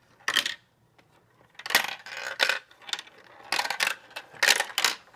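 Marbles clicking and clattering along a marble run track in a series of sharp, irregular knocks, thickest in the second half.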